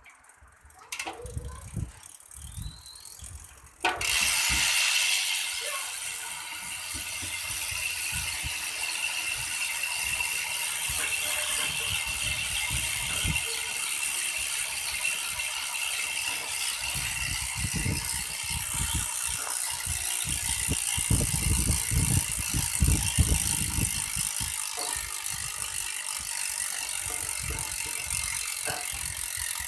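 Sagmit V12 bicycle rear hub freewheeling: its ratchet pawls click so fast they merge into a loud, steady buzz. It starts suddenly about four seconds in, after a few scattered clicks.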